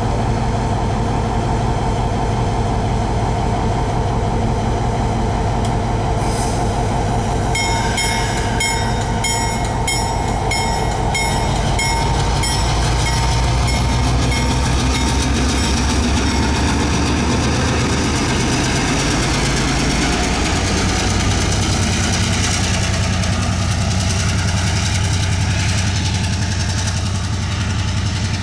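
EMD SW1500 switcher locomotive's diesel engine running as the locomotive rolls slowly past close by and then pulls away, its low note shifting about twenty seconds in. A rapid, evenly repeated high ringing sounds for several seconds about eight seconds in.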